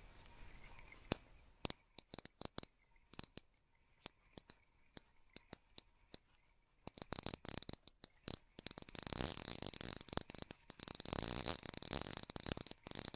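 Fishing reel clicking: scattered sharp metallic ticks at first, then a fast, continuous run of clicks from about seven seconds in.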